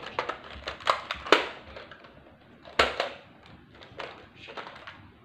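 Handling noise: scattered knocks, clicks and rustles as toys are waved and handled, the sharpest knocks about a second in and near the three-second mark.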